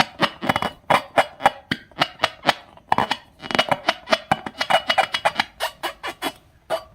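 Background music with quick plucked string notes.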